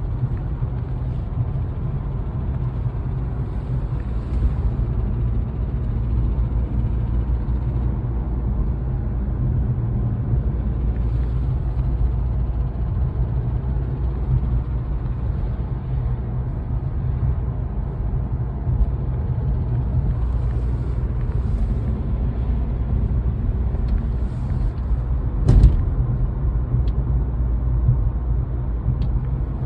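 Mercedes A180 engine running steadily with the rattle its owner is asking about, which shows around 1500 rpm and under gentle acceleration and persists after a new timing chain and tensioners, variable valve timing wheel and belt. One sharp knock about four seconds before the end.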